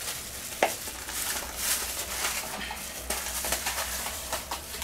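Crinkling and rustling of disposable plastic gloves handling a small paper packet of dang gui, with scattered small clicks and a sharper tap about half a second in.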